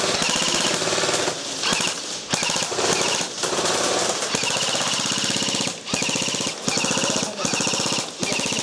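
Airsoft guns firing on full auto: rapid, even chattering in long, nearly unbroken bursts, with a few short pauses.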